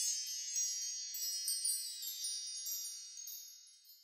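High, tinkling chimes ringing in a shimmering cascade, with fresh strikes here and there, slowly fading and dying away near the end.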